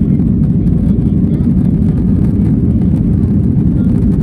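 Cabin noise of a Boeing 737-900ER climbing after takeoff: a loud, steady, deep rumble of its CFM56-7B turbofan engines and the airflow, heard from a window seat over the wing.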